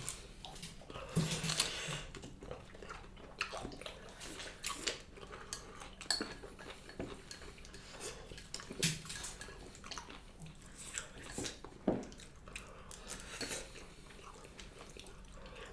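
Eating sounds from a bowl of pork back bone soup: scattered light clicks and knocks of spoon and chopsticks against the bowl, with faint slurping and chewing between them.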